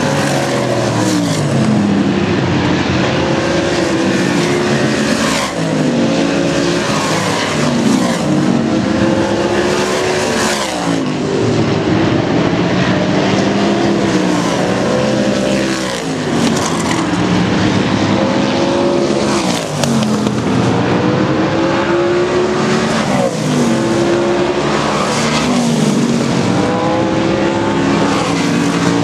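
Oval-track race cars running practice laps at speed, passing close by one after another every few seconds. Each engine note rises and then drops as the car goes past, and engines are heard throughout.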